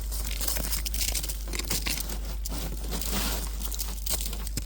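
Crunching and crackling of icy, crusted snow, a dense run of small crisp cracks with thicker patches about a second in and near the middle.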